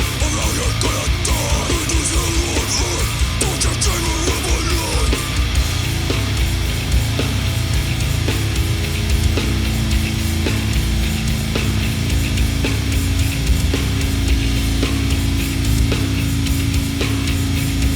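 Loud, harsh, distorted heavy music with a dense low end. Wavering pitched sounds fill the first few seconds, and they give way to steady held low notes about halfway through.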